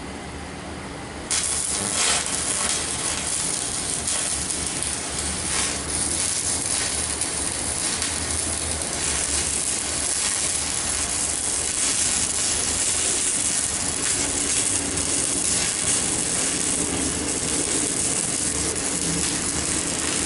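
Stick-welding arc from a 4 mm electrode on a CNR 120 welding machine. It strikes suddenly about a second in, then burns with a steady hiss and crackle.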